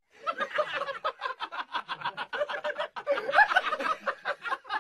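A person laughing in a long, unbroken run of quick pulses.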